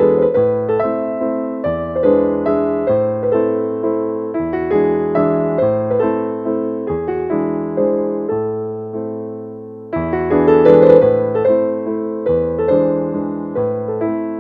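Background piano music: evenly paced notes over low bass chords that change every couple of seconds, with a fuller, louder chord about ten seconds in.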